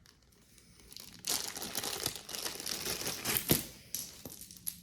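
Packaging crinkling and rustling as a piece of jewelry is unwrapped by hand, starting about a second in, with a few sharp clicks among the crackle.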